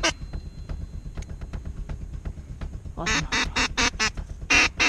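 Ducks quacking in quick runs of short calls: about six in a row some three seconds in, then two or three more near the end, with faint rustling and small clicks in the quieter stretch before.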